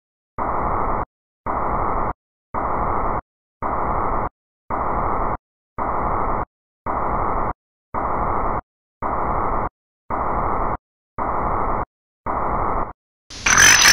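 Pulsed static from a scrambled satellite TV signal: about a dozen bursts of muffled hiss, evenly spaced about one a second. Near the end a louder, brighter hiss with a high steady whine cuts in.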